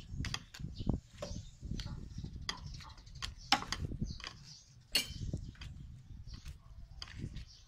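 Metal spoon pressing watermelon flesh through a plastic colander to strain out the juice, with irregular clicks and scrapes as the spoon knocks against the colander over a low rumble.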